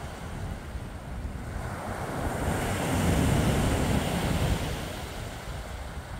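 Sea waves breaking on a pebble beach, one wave swelling to a peak about three seconds in and then washing back down, with wind buffeting the microphone.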